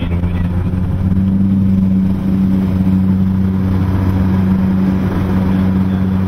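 Twin Pratt & Whitney PT6A turboprop engines of a Beechcraft King Air, heard from inside the cabin while the plane taxis on the ground: a steady, loud low drone that grows a little louder and hissier about a second or two in.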